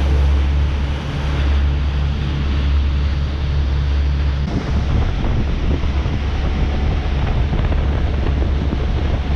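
Wind buffeting the microphone on a boat running at speed, over a steady low rumble and the rush of water from the hull and wake.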